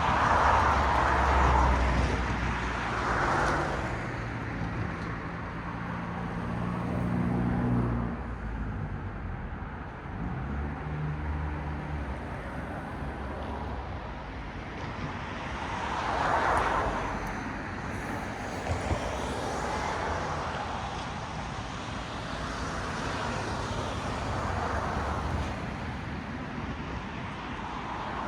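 Cars passing one after another on a road, each a swell of tyre noise that rises and fades, with a low engine hum from a vehicle for several seconds in the first half.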